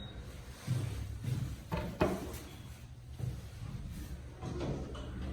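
Elevator car door moving, with a few clunks and knocks over a steady low hum of the car; the door is kind of squeaky.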